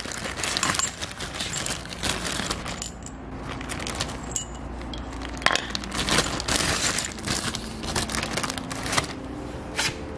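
Plastic zip-lock bag crinkling while metal trigger-kit parts (trigger wheel, plate and bolts) clink against each other and the concrete floor as they are set down, with many sharp, irregular clicks.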